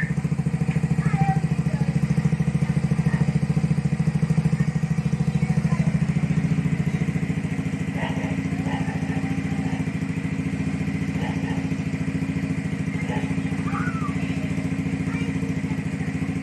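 Yamaha Mio Gear scooter's small single-cylinder engine idling steadily through an aftermarket Apido exhaust pipe.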